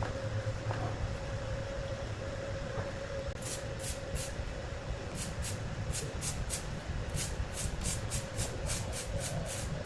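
Large wood saw machinery running with a steady hum and a whine, joined a few seconds in by a regular hissing tick that speeds up to about four a second.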